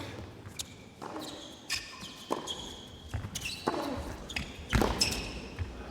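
Tennis rally: the ball struck by rackets several times, with players' shoes squeaking on the court as they move between shots.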